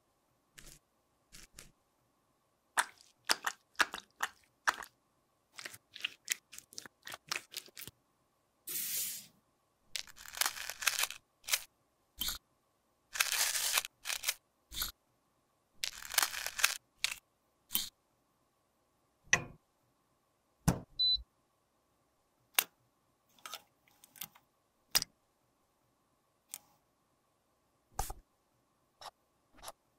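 Close-up crunching and scraping of crumbled pressed face powder, as a metal spatula breaks it up and scrapes it against a metal compact pan. The work comes in several scrapes of about a second each, with scattered sharp clicks and taps of the tools and compact between them.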